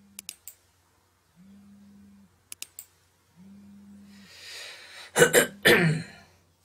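Computer mouse clicks, three quick ones at the start and three more about two and a half seconds in, with three short, low, steady hums between them. About five seconds in a man draws breath and clears his throat with two loud, harsh coughs: he has a slightly sore, hoarse throat.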